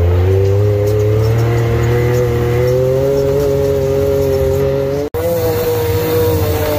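Can-Am turbo side-by-side's engine running at steady throttle, its pitch creeping slowly upward. It breaks off abruptly about five seconds in, then runs on again.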